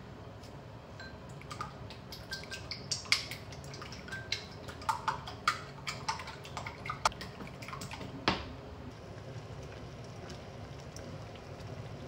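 Eggs beaten with long wooden chopsticks in a glass bowl: quick, irregular clicks and taps of the chopsticks against the glass, some with a short glassy ring. They run from about a second and a half in to about eight seconds, then stop, leaving a low steady hiss.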